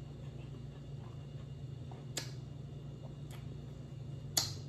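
Three short wet mouth clicks from sucking sauce off the fingers while eating crab legs, about a second apart, the loudest near the end, over a steady low hum.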